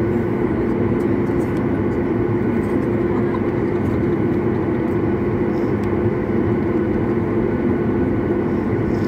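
Boeing 737 jet airliner heard from inside the cabin while taxiing: the engines' steady drone with a constant low hum over a rumble.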